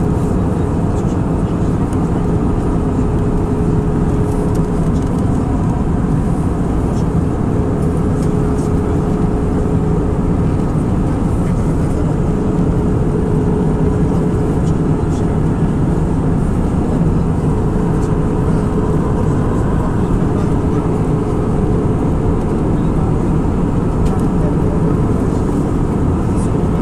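Steady cabin noise of an Airbus A319 in cruise, heard from a window seat over the wing: a constant rushing noise of engines and airflow, with a steady mid-pitched hum running under it.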